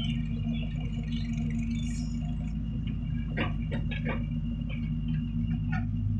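Kobelco Yutani hydraulic excavator's diesel engine running steadily under load, with a few short scrapes and knocks as the bucket digs into the soil a little after three seconds in. The engine note grows louder near the end as the loaded boom lifts.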